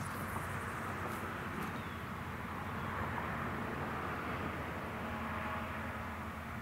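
Steady distant engine-like rumble with a hiss that swells slightly a few seconds in, and a few faint clicks in the first couple of seconds.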